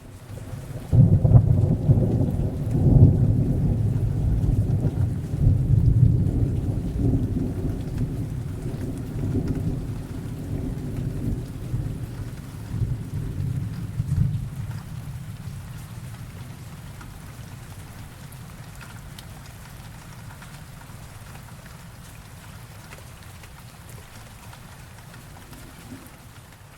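A long roll of thunder over steady rain. It starts about a second in, is loudest in the first few seconds with several surges, then rumbles off over the next fifteen seconds or so, leaving the rain.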